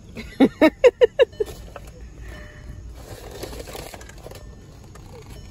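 A person's voice: a quick run of about six short pitched syllables, about five a second, then soft rustling.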